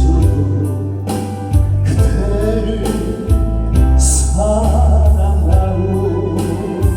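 Backing-track music with a steady beat and heavy bass, with a singer's voice carrying the melody over it.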